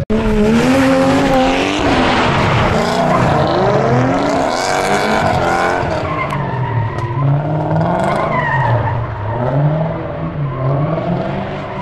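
Two Toyota Mark II drift cars sliding in tandem: engines revving up and down over and over under loud tyre squeal. The squeal is heaviest in the first half and eases off near the end as the cars move away.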